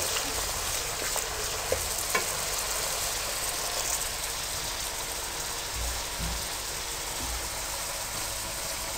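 Chopped vegetables sizzling steadily in hot oil over high heat, with a few light clicks of a stirring spoon against the pan in the first couple of seconds.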